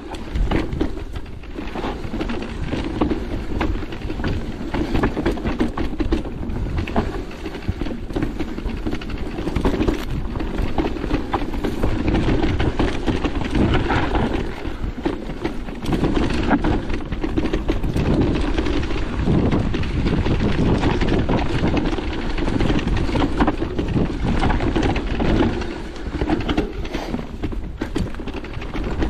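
Merida eOne-Sixty electric mountain bike ridden over a rough trail: steady tyre rumble with frequent sharp rattles and knocks from the bike, and wind buffeting the microphone.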